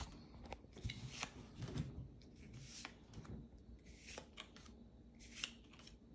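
Quiet flicks and slides of Pokémon trading cards as they are moved one at a time from the front of a hand-held stack to the back. The soft clicks come at irregular intervals, and the sharpest is about five and a half seconds in.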